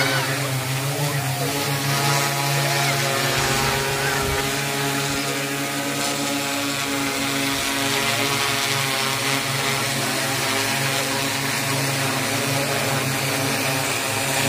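Agricultural crop-spraying multirotor drone with a 10-litre tank flying low and coming down to land. Its spinning propellers give a steady, pitched hum with many overtones.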